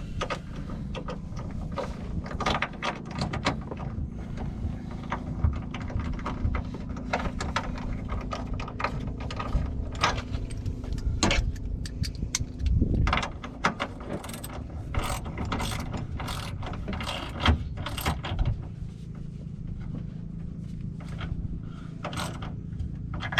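Hand ratchet wrench clicking in irregular runs, mixed with sharp metallic clinks of tools and parts, over a steady low hum.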